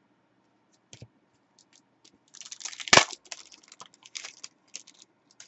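Foil trading-card pack being torn open: a burst of crinkling wrapper with one sharp crack about three seconds in. A light tap or two of cards being handled comes before it.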